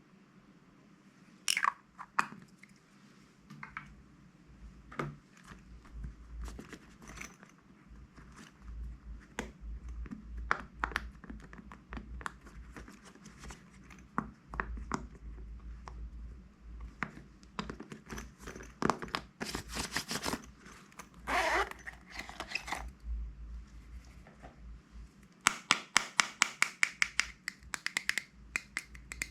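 Slime being squished and mixed by hand, with scattered crackles and wet pops; near the end comes a quick run of sharp pops, about four or five a second.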